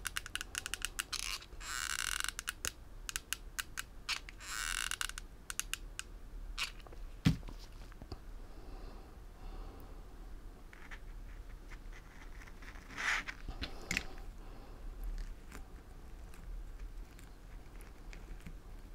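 Stiff organza ribbon petals crinkling and rustling in short bursts as they are handled and pressed together, with scattered small clicks and taps and one sharper knock about seven seconds in.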